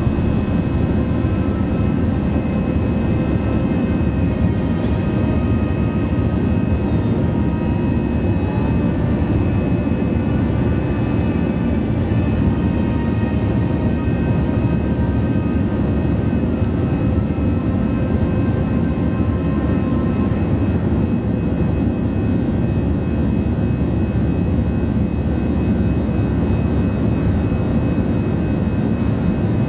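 Steady cabin drone of an Airbus A321 in its climb after takeoff: jet engines at climb power and rushing air give a low, even rumble with a few faint steady whines above it.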